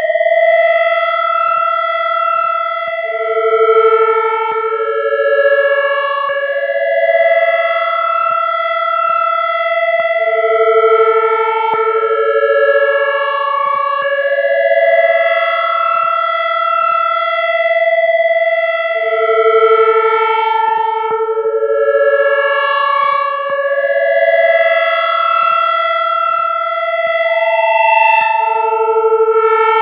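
Ambient music of long, overlapping held notes on a synthesizer or effects-laden instrument, drifting slowly from pitch to pitch. A lower note returns about every eight to nine seconds.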